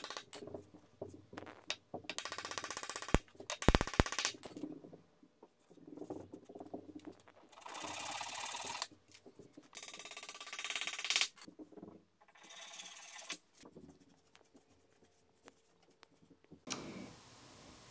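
A hammer knocks a wooden dowel into a timber leg joint, the loudest blows about three to four seconds in. Then a flush-cut hand saw saws the protruding dowel end off in two runs of quick strokes.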